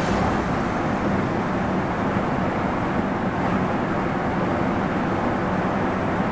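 Steady roar of a commercial kitchen's gas stove burner and ventilation heating a large stockpot of soup.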